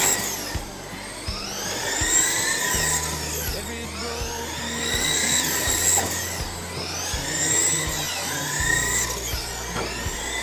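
Several RC race cars' motors whining around the track, the pitch rising and falling over and over as the cars accelerate down the straights and slow for the turns, with an occasional click or knock.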